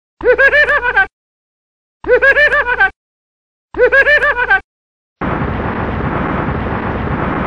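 Cartoon sound effects: a short, high warbling sound that wavers rapidly up and down in pitch, played three times identically about a second and a half apart. About five seconds in, a loud, steady, explosion-like rush of noise begins.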